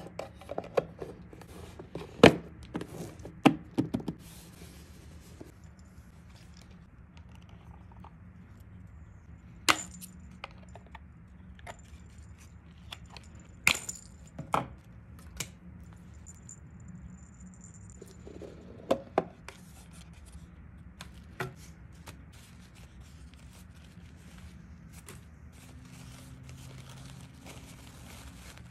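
Scattered sharp clicks and knocks of small objects being handled and set down: a quick cluster in the first few seconds, then single knocks several seconds apart.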